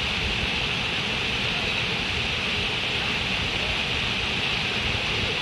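Flowing water rushing steadily, an even hiss with no breaks or changes.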